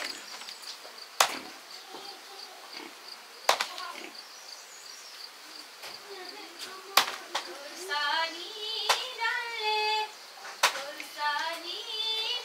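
A large knife chopping raw meat on a wooden block: single sharp chops, about five, one to three seconds apart. A steady high insect buzz runs underneath, and a child's high voice calls out in the second half.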